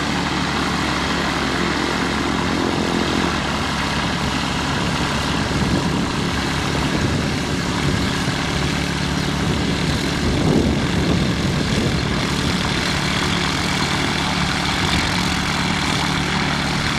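Zenith STOL CH 701's Rotax 912 engine and propeller running at low taxi power, a steady drone, swelling briefly about ten seconds in.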